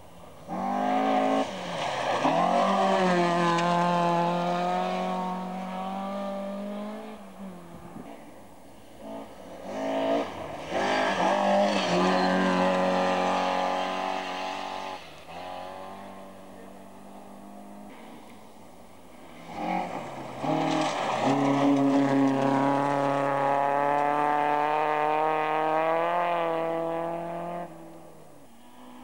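Rally car engine at full throttle on a gravel special stage, in three long pulls of about five seconds each with quieter lifts between.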